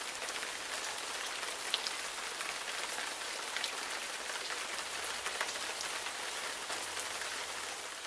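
Steady rain falling, an even hiss of rain with scattered close drops ticking through it; it starts to fade out at the very end.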